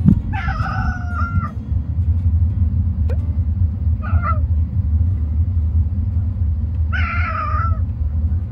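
A cat meowing three times, a few seconds apart, the first and last calls longer than the middle one, over a steady low rumble.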